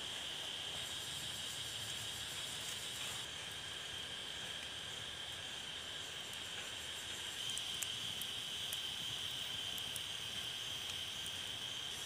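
Steady, continuous high-pitched drone of insects in the surrounding forest, with a few faint crackling ticks from the wood fire about two-thirds of the way through.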